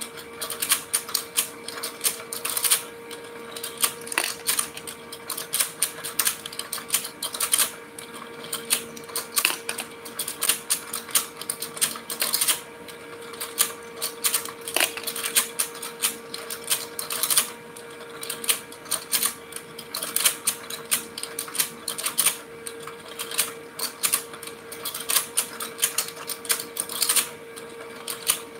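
Battery-powered rotating fishing game toy running: a rapid, irregular plastic clatter from its turning pond and fish over a steady motor hum.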